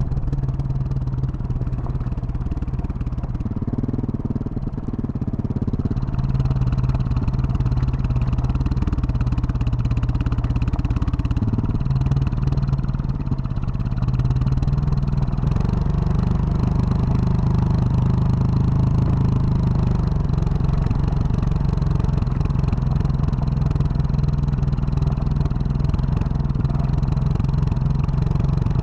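2021 Husqvarna 701 Supermoto's single-cylinder engine running through a Wings aftermarket exhaust while riding, heard from on the bike. Its pitch steps up and down several times, and it gets louder about six seconds in.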